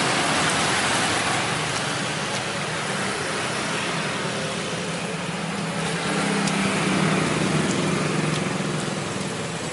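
Steady roar of road traffic, with motorbike engines swelling and fading as they pass, louder around six to eight seconds in.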